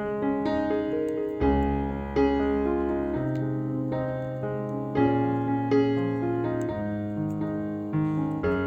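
Background piano music: notes struck one after another over changing chords, at a steady moderate level.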